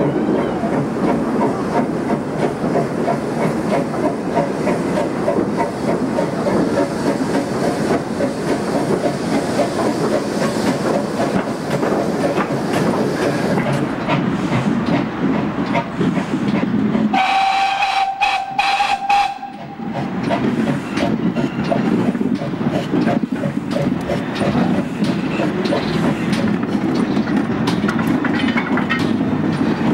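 GWR pannier tank steam locomotive No. 1369 running with a train of goods wagons: a steady, loud train noise. About two-thirds of the way through, a single steam whistle blast lasts about two seconds.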